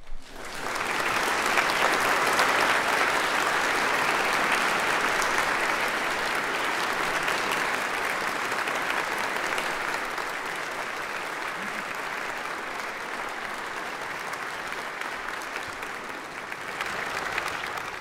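Audience applauding. It breaks out suddenly, is loudest in the first few seconds, and then carries on steadily a little softer, with a slight swell near the end.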